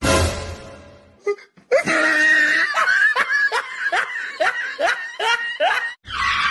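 A sudden crash that fades over about a second, then a person laughing in a run of about ten short 'ha's, each falling in pitch.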